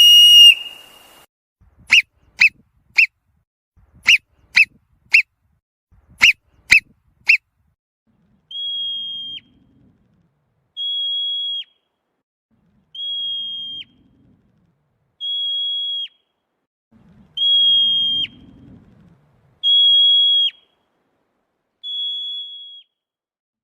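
Marmot alarm whistles: three quick series of three short, sharp chirps, followed by seven longer single whistles about two seconds apart, each held steady and then dropping in pitch at the end.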